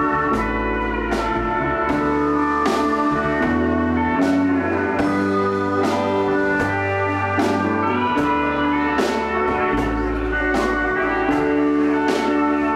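Live country band playing an instrumental passage without vocals: electric guitar, bass guitar and steel guitar over a drum kit keeping a steady beat.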